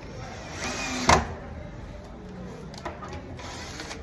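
Woodworking noise: one sharp knock about a second in, after a short hiss, then a fainter click near three seconds and more hissing near the end.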